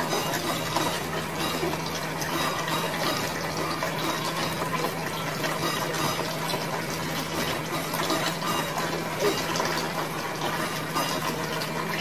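Running water splashing steadily, with a steady low hum underneath.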